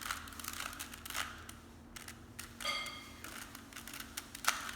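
Plastic Rubik's cube layers being twisted by hand, a series of quick irregular clicks and clacks. A brief high tone sounds just past halfway.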